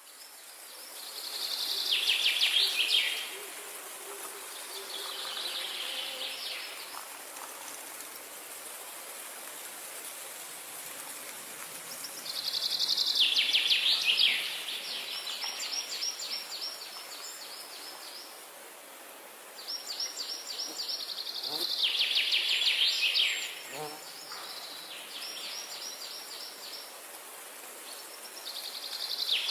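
Wild birds singing: loud phrases of rapid, trilled notes that come again every several seconds, over a steady high hiss of insects.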